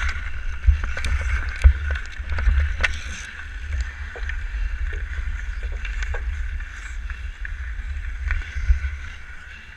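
Hockey skates scraping and gliding on rough outdoor ice, with the stick clicking sharply against the puck several times in the first three seconds, over a steady low rumble on the body-mounted camera's microphone.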